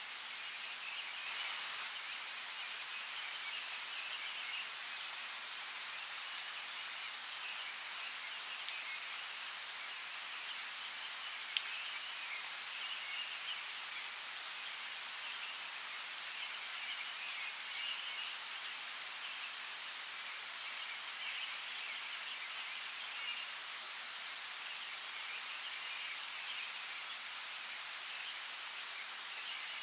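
Steady rain falling, with single drops ticking sharply now and then, over a faint chirping chorus that swells and fades.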